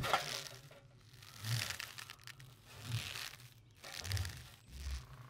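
Quiet cartoon sound effects: soft creaking, rustling sounds with a low bump, repeating about every second and a half.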